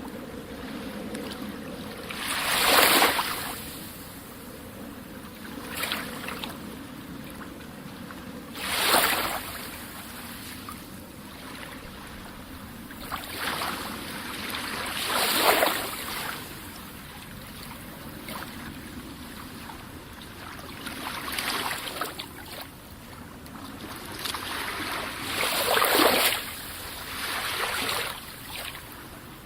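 Calm sea waves breaking, a steady wash of surf with a louder hissing swell every several seconds that rises and falls away.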